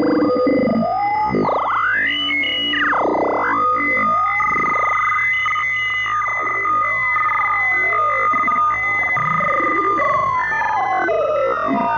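Synthesized sci-fi UFO communication sound effect: electronic tones sweeping up and down in quick arcs over two steady held high tones.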